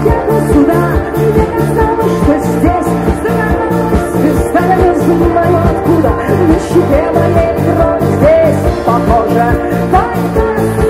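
Live rock band playing an instrumental passage: a steady drum beat and bass line under guitars carrying a wandering melody.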